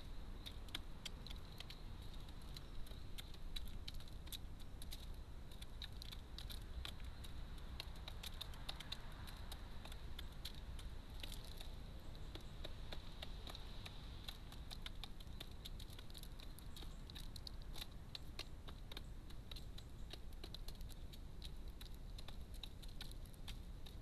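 Wood pigeons pecking seed from a feeder tray: an irregular, continuous patter of sharp little clicks and taps as beaks strike the seed and tray, over a low steady hum.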